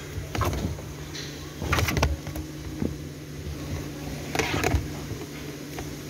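Handling noise in a car boot: the trunk release cable and boot carpet scraping and rustling in irregular short bursts, loudest about two seconds in and again near four and a half seconds, over a steady low hum.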